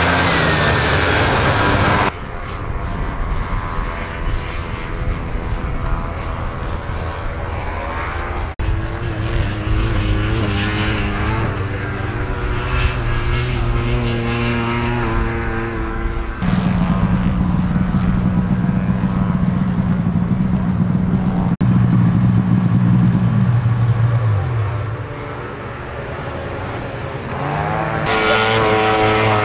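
Two-stroke snowmobile engines running in a string of short clips. A vintage racing sled is loud at speed for the first couple of seconds, then sleds idle and rev at several steady pitches. Near the end one engine's pitch drops before a higher-pitched engine takes over.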